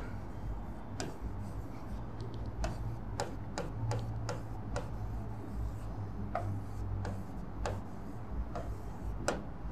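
Stylus tapping and scratching on an interactive display screen during handwriting: a string of light, irregular clicks over a low steady hum.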